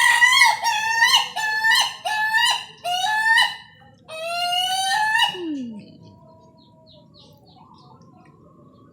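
Ayam ketawa (laughing chicken) rooster crowing: a rapid run of short, rising, laugh-like syllables, then one longer drawn-out note that falls away about five seconds in.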